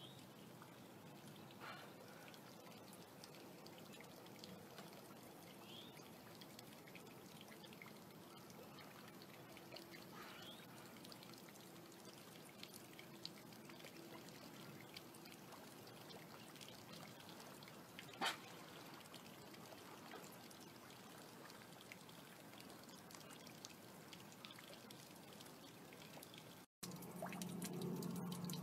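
Faint water lapping at the shore and pilings, very quiet, with one sharp click about two-thirds of the way through. Near the end, after a sudden break, a louder low steady hum.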